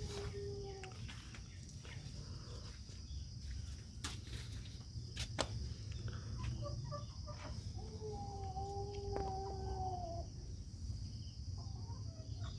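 Country chickens (desi hens) calling: a short call at the start and a drawn-out, slightly wavering hen call about eight seconds in that lasts about two seconds, over a steady high buzz and a few soft clicks.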